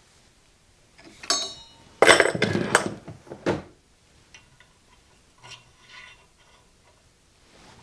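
Loose metal parts clinking and clattering as they are handled. A single ringing clink comes about a second in, then a loud jumble of metal knocks and rattles for about a second and a half, then a few faint clinks.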